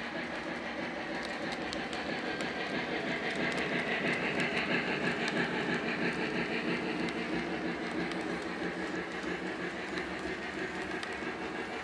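Lionel O-gauge Santa Fe 3751 steam locomotive and its Super Chief passenger cars rolling on three-rail track: a steady rumble of wheels with faint clicks at the rail joints. It swells about four to six seconds in as the cars pass closest.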